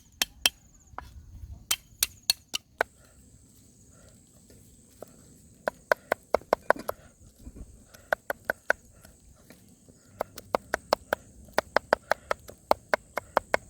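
A knife chopping on a cutting board: runs of sharp, quick strikes with short pauses between the runs, typical of chopping meat.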